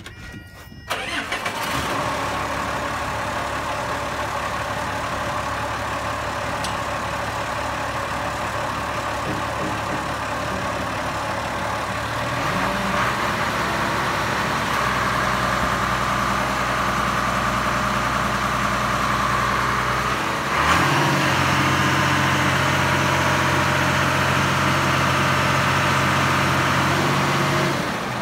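Marina Bull LoPro straddle carrier's engine starting about a second in, then running steadily as the machine lowers a slung boat onto its stands. Its speed steps up twice, about halfway through and again about two-thirds through, and it drops off near the end.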